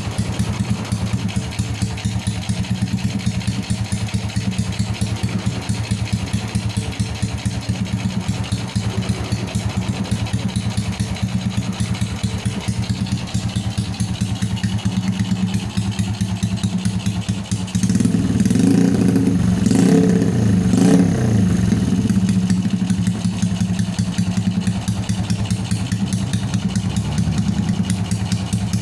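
Honda Supra Fit New motorcycle's 115 cc engine idling steadily while it warms up. From about two-thirds of the way through it gets a few short blips of throttle, the note rising and falling, then it settles back to idle.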